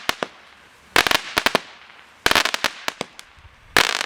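Consumer firework cake (a 50-shot 'ammo box') firing. Three volleys about a second and a half apart, each breaking into a quick cluster of crackling pops, with a few trailing pops at the start.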